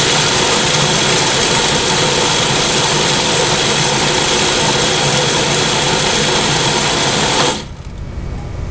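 Commercial food processor motor running steadily, mixing a nut-and-dried-fruit dough while water is drizzled in through the feed tube. The motor cuts off about seven and a half seconds in.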